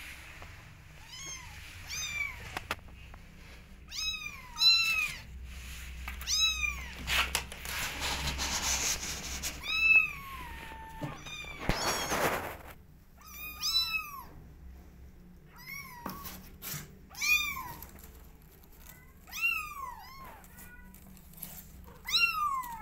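Young kittens meowing over and over: thin, high calls that rise and then fall, about one every second or two. In the middle, a few seconds of rustling, with a single sharp click.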